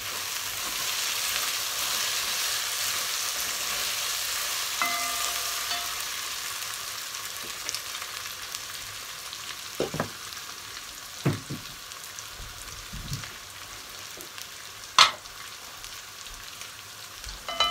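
Sliced onions, peppers and carrots sizzling in hot oil in a metal pot, the hiss loudest in the first few seconds and slowly dying down. A spatula knocks against the pot a few times, loudest about fifteen seconds in.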